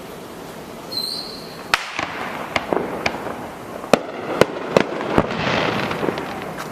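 Fireworks going off: a short whistle about a second in, then a string of about eight sharp bangs and pops over three seconds, followed by a burst of crackling hiss.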